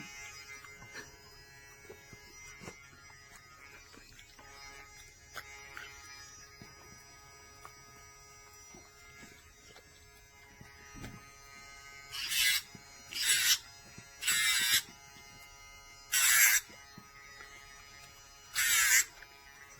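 Casfuy electric dog nail grinder running at speed setting 3 with a faint, steady motor whine. In the second half come five short, harsh grinding rasps, each about half a second, as the spinning drum is pressed against a dog's nails.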